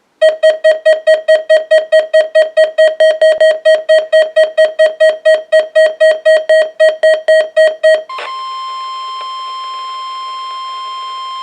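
Electronic alert beeping from a weather radio receiver, about four sharp beeps a second for roughly eight seconds. It then switches to a steady 1050 Hz NOAA Weather Radio warning alarm tone, part of the attention signals of a weekly test.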